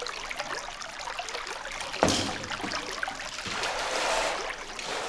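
Shallow cave stream trickling over rock and gravel, with one sharp knock about two seconds in.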